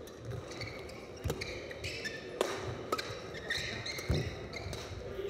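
A fast badminton doubles rally: sharp racket hits on the shuttlecock about a second apart, with players' shoes squeaking and feet thudding on the court floor between strokes.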